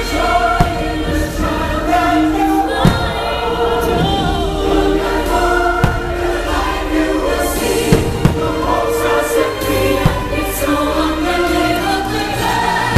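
Fireworks show soundtrack of choir singing, with fireworks bursting in sharp bangs over it, half a dozen times.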